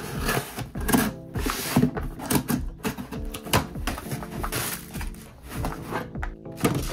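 Cardboard box flaps and plastic packing wrap rustling and crinkling in quick handling noises as a parcel is unpacked, over steady background music.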